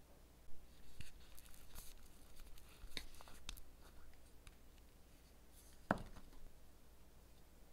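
Faint scattered taps, clicks and scratchy handling noises of small nail tools and fingertips, with one sharper knock about six seconds in.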